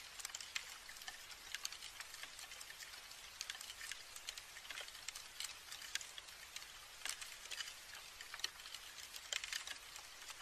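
Dense, irregular crackling and ticking of woodworm larvae chewing inside a piece of rotten wood, picked up by a microphone held close above it. The clicks come unevenly, several a second, with no steady rhythm.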